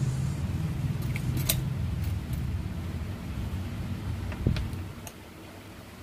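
A low rumble that dies away about five seconds in, with a few light metallic clicks and one louder clack with a low thump about four and a half seconds in, as a pair of steel tweezers is set down on the workbench.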